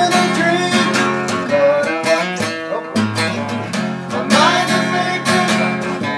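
Acoustic guitar strummed, its chords ringing on between strokes, in an instrumental passage between sung lines.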